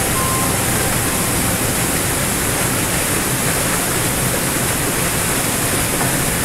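A small waterfall pouring over rocks into a pool: a steady, even rush of falling water with a lot of hiss in it.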